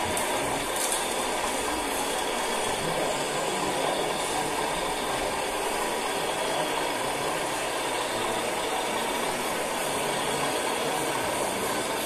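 Steady whirring and rattling of scale hydraulic RC construction machines at work: hydraulic pumps and small electric drive motors running, with no break or change.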